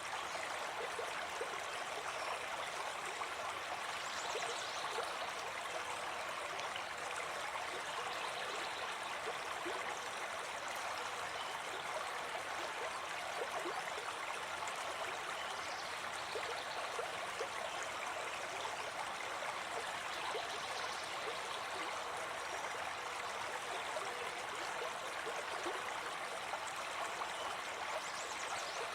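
Small forest stream running over rocks, a steady rushing and gurgling of water.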